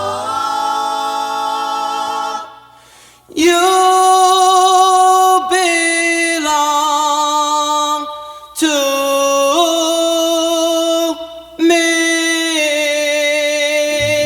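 Doo-wop vocal group singing long held harmony chords on open vowels, with little accompaniment. The chords change in steps and have brief pauses between some of them.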